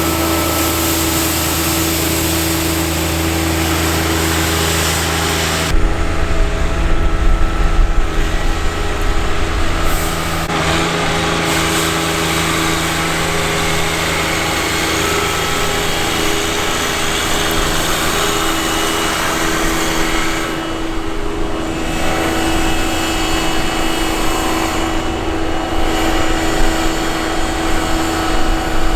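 A motor vehicle's engine runs steadily, with a constant hum, and the sound shifts abruptly about six seconds in.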